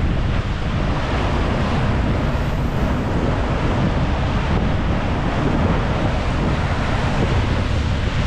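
Wind buffeting the microphone over choppy lake water rushing and splashing along the side of a moving car ferry.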